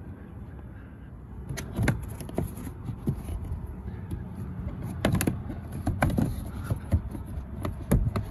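Rubber weatherstrip seal being pulled up from the edge of a Tesla Model S front-trunk opening, with a string of sharp clicks and knocks from the handling starting about two seconds in, over a low steady rumble.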